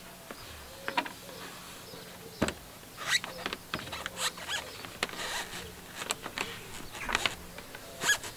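Scattered light clicks, taps and scrapes of hands working on the plastic in-roof solar mounting trays, over a faint low hum that comes and goes.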